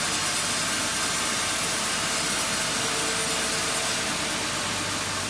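Band sawmill blade running steadily through a very wide oak log, with the even hiss of the cut and the mill's motor underneath. The owner sees the blade diving down into the log in this cut, which he puts down to sawdust clogging the blade's gullets on such a wide cut.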